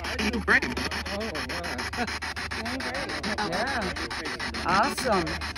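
Spirit box sweeping rapidly through radio stations, played through a small round portable speaker: static hiss chopped by rapid, evenly spaced clicks, with brief snatches of garbled radio voice and tone.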